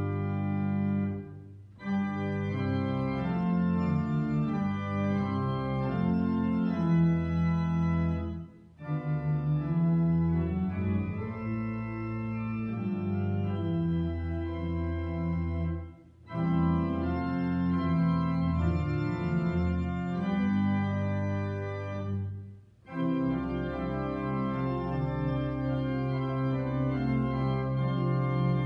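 Organ playing slow, held chords in phrases, with four short breaks between phrases.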